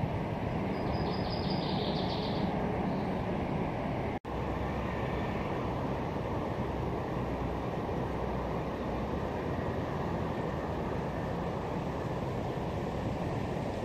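Steady rushing of a wide, fast-flowing river, with a brief faint high chirping about a second in.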